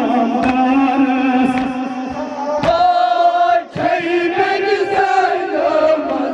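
Men chanting a Kashmiri noha, a Muharram mourning lament, sung into handheld microphones, with other men's voices joining. About three seconds in, one voice holds a long steady note before a short break.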